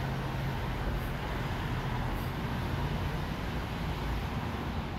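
Steady street traffic noise, with a vehicle's low engine hum that dies away about three and a half seconds in.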